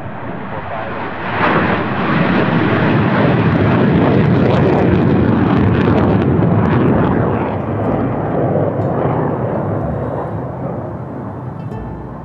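F-16 fighter jet's engine at takeoff power as the jet lifts off and climbs away. The jet noise swells sharply about a second and a half in, stays loud, then fades over the last few seconds as the jet moves off.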